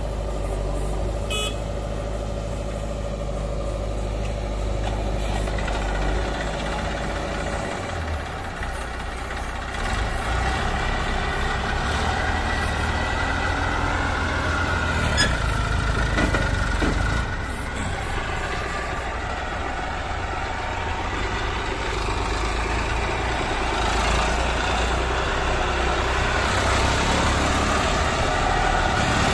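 Diesel engines of a JCB 3DX backhoe loader and a Massey Ferguson 1035 tractor running. The tractor's engine grows louder near the end as it pulls away with the loaded sand hopper.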